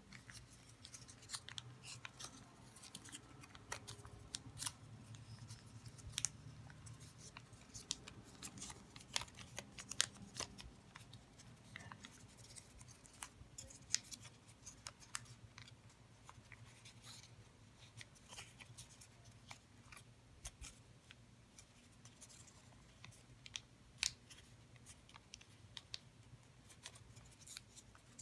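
A sheet of origami paper being folded and creased by hand: faint, irregular crackles and sharp little paper snaps as the folds are worked and pressed, a few of them louder than the rest.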